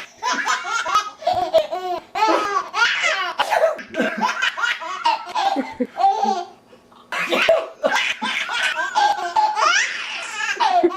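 A six-month-old baby laughing in repeated bursts of giggles, with a short lull about six and a half seconds in before the laughter picks up again.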